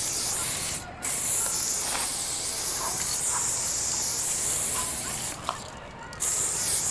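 Garden pressure sprayer spraying water-based paint in a steady hiss, stopping briefly twice: a short break about a second in and a longer one of about a second near the end.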